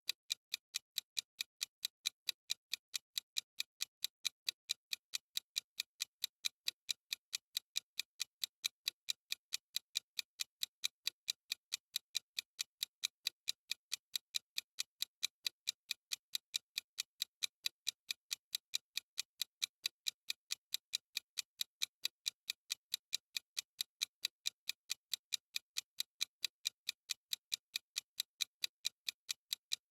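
Clock-style ticking of a countdown timer's sound effect: sharp, high, evenly spaced ticks at a quick, steady pace, several a second.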